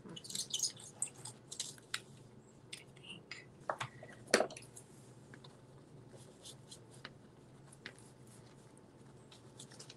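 Scratching and scraping of an art tool working on a paper journal page, busiest in the first couple of seconds, with one sharp click about four and a half seconds in and faint scattered scratches after it as a drawing tool scribbles on the page.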